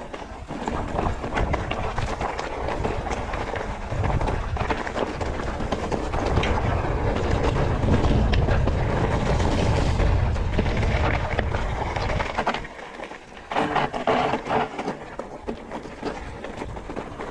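Mountain bike riding down a stony dirt singletrack: tyres crunching over gravel and rocks and the bike rattling and clicking over the bumps, with a low rumble of wind on the microphone, heaviest through the middle. About fourteen seconds in, a burst of scraping clatter as the rider brushes through the bushes beside the trail.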